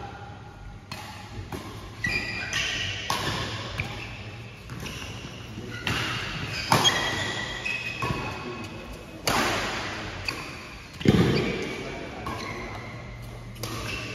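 Badminton rackets striking the shuttlecock in a fast doubles rally, sharp smacks every second or two with the strongest hit about eleven seconds in, ringing in a large hall. Short high squeaks of court shoes come between the hits.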